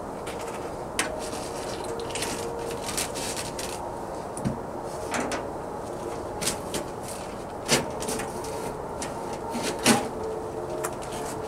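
Scattered sharp knocks and clicks of tools and metal car parts being handled, about eight spread irregularly, the loudest near the end, over a steady faint hum.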